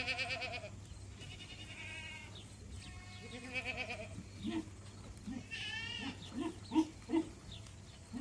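Billy goat bleating: a string of wavering, quavering calls, with short low grunts between them in the second half.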